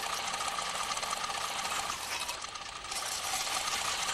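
Electric blender motor running steadily with a whine, easing off briefly about two seconds in.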